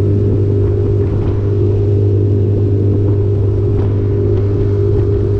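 A small fishing boat's outboard motor running steadily at trolling speed, an even low hum with no change in pitch.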